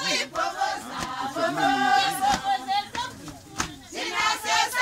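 A group of people singing and chanting together, with shouts and held notes, and one sharp crack about three and a half seconds in.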